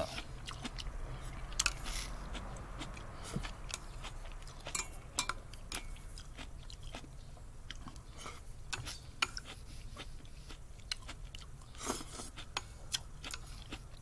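A person eating miso soup of cooked greens and onion with chopsticks from a small pan: chewing, with scattered light clicks of the chopsticks against the pan.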